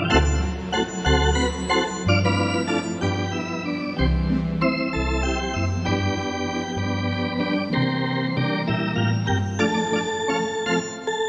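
Instrumental background music: sustained organ chords over a bass line that steps from note to note.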